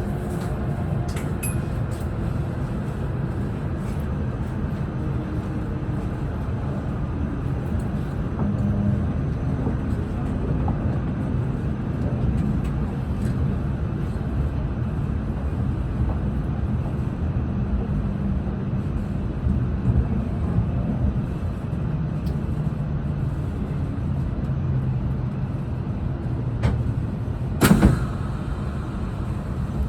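Cabin running noise of a JR East E6 series Shinkansen: a steady low rumble of wheels on track, with faint pitched motor tones in the first couple of seconds. A single short, loud sharp noise comes near the end.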